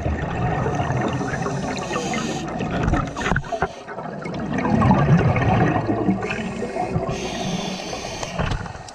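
Scuba regulator exhaust bubbles gurgling underwater, heard through the camera housing, loudest about halfway through.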